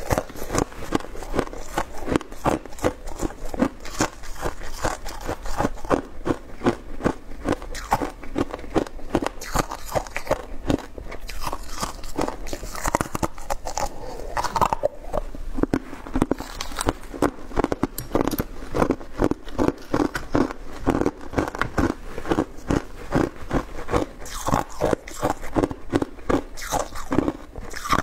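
Mouth crunching and chewing thin shaved ice close to the microphone: a dense, continuous run of crisp crunches, several a second.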